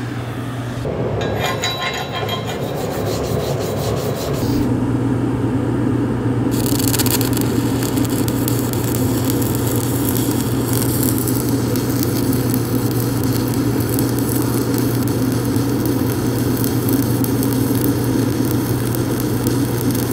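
Stick-welding arc burning hardfacing electrodes: a steady crackle and sizzle over a low buzz, growing louder about four seconds in.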